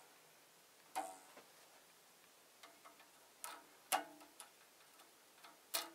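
Rubber timing belts of an FLSUN QQS delta 3D printer plucked by hand like guitar strings: short twangs, each with a brief pitched ring, about a second in, twice a little past the middle, and once near the end. Plucking is a check on belt tension, and the belts do not ring alike from one tower to the next.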